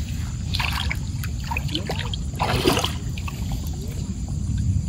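Shallow stream water trickling steadily at the bank, with two short noisy scrapes or splashes about half a second and two and a half seconds in.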